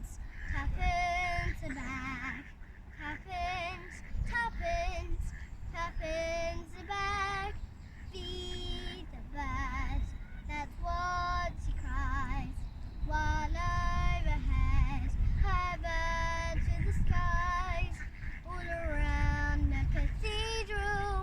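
A young girl singing solo in a slow melody, with vibrato on the held notes.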